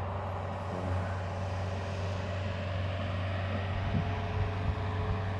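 Golf cart driving along: a steady low motor hum with a few steady whining tones above it.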